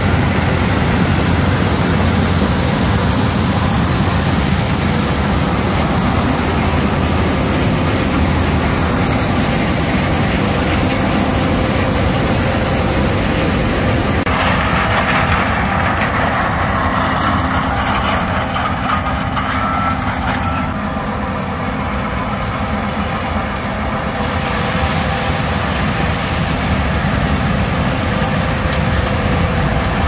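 John Deere combine harvesting corn: its engine and threshing machinery run steadily as the corn head takes in the standing stalks. The sound shifts about halfway through as the machine moves past.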